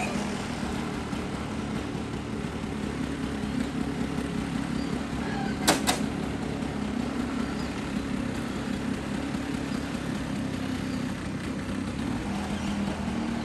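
A steady low mechanical hum, with one sharp click near the middle.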